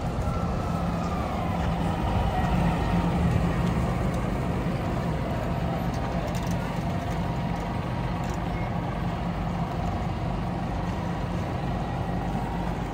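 Street traffic dominated by a heavy vehicle's engine running steadily, with a whine that falls in pitch over the first second or two.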